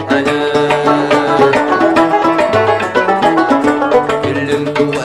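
Algerian chaabi ensemble playing an instrumental passage: a fast, busy plucked-string melody in the style of a mandole or banjo over held bass notes.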